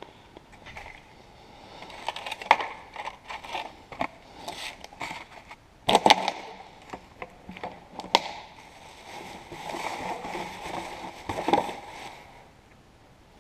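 Gloved hands picking through scrap on a workshop floor: small metal parts clinking and knocking together and scraping on concrete, mixed with a plastic bin bag rustling. Irregular clatters, the sharpest about 2.5, 6, 8 and 11.5 seconds in.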